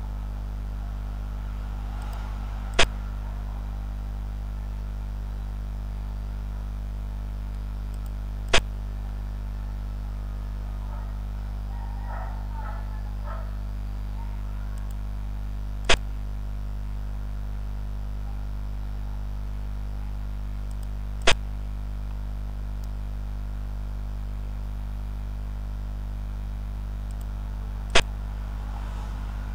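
Steady electrical mains hum, with a sharp click five times, five to seven seconds apart: the xiangqi software's piece-placement sound as each move is played on the board.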